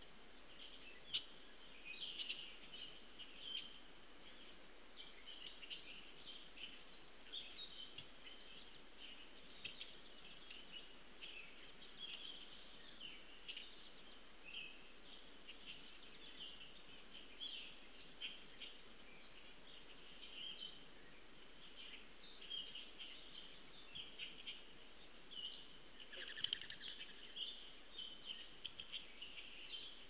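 Background bird chorus: many small birds chirping and singing in quick, high notes throughout, with a sharp tap about a second in and a brief louder flurry near the end.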